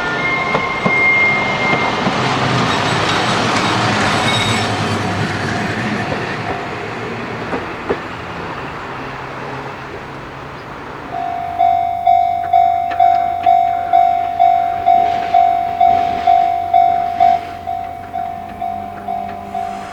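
A train runs past a railway level crossing: its noise swells to a peak about four seconds in and fades away. About eleven seconds in, the crossing's electronic warning bell starts ringing loudly, about two strokes a second, easing off a little near the end.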